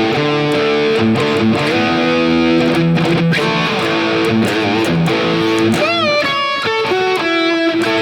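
Electric guitar played through a NUX MG-30 modeling unit on a Marshall-style high-gain lead patch with delay. Sustained lead notes, with wide vibrato on held notes from about six seconds in.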